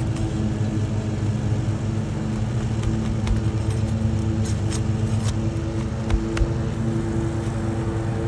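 Steady low motor drone with a few faint clicks, and two dull thumps in quick succession about six seconds in.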